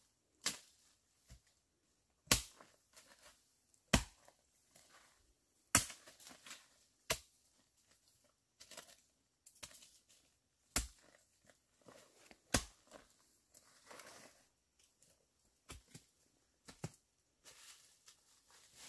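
Sharp chopping strikes of a blade cutting bamboo shoots at their base, one every second or two, with a pause of a few seconds in the middle. Dry leaves and stalks crackle and rustle between the strikes.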